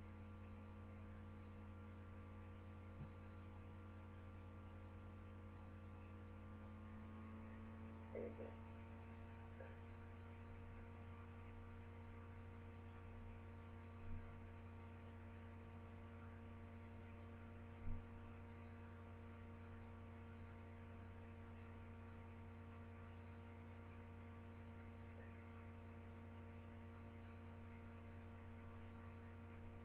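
Near silence: a steady low electrical hum with a few faint soft clicks.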